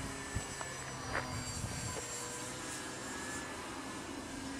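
Scratch-built RC model airplane flying overhead: a steady drone from its motor and propeller, with a whine that holds a nearly even pitch. A couple of short clicks come in the first second or so.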